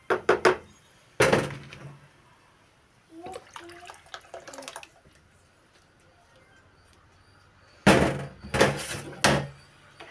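Boiling sugar syrup for semolina halva spluttering and hissing in a pot as it is stirred. There are sharp sizzling bursts, one just over a second in and the loudest run about eight seconds in, after more is tipped into the pot from a pan.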